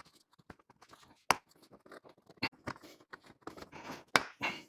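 Scattered clicks and scratching as a truck seat's upholstery is worked off its small metal clips by hand, with a sharp snap about a second in and another near the end.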